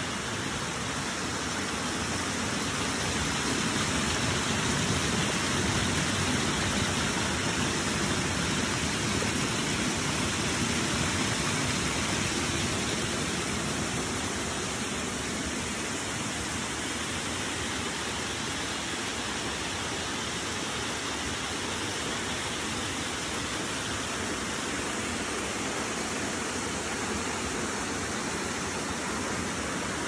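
Small forest waterfall spilling over low rock ledges into a shallow stream: a steady rushing of water that swells slightly a few seconds in, then eases.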